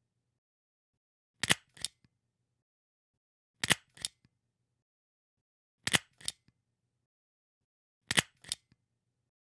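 A stapler pressed four times, about two seconds apart. Each press is a sharp click followed a moment later by a second, softer click.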